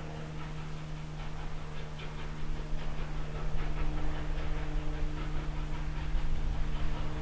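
Distant steam locomotive working toward the listener, its exhaust beats and a low rumble growing steadily louder.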